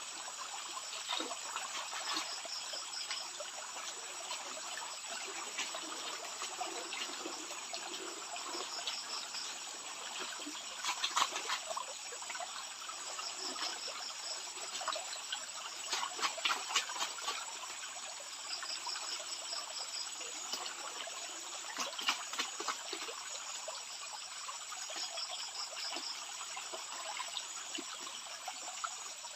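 Shallow stream water trickling and splashing, with scattered small clicks. A faint, high insect chirring comes and goes.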